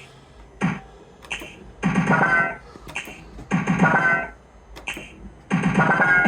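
Fruit machine's electronic sound effects: a few clicks, then three similar short synthesized jingles about a second and a half to two seconds apart.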